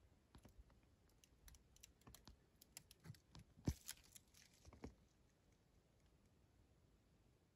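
Faint, irregular clicks and crackles, a dozen or so in the first five seconds, the loudest about three and a half seconds in.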